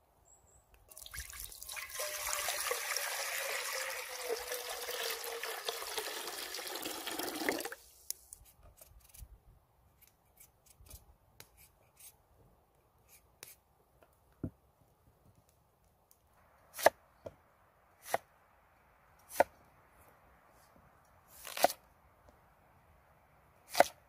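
Water pouring into a cast-iron camp pot for about seven seconds, with a falling tone, then stopping abruptly. Faint scraping clicks follow as a knife peels raw potatoes, and near the end come five sharp knocks of a knife cutting potatoes on a wooden board.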